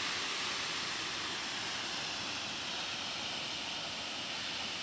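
Waterfall's steady rushing water.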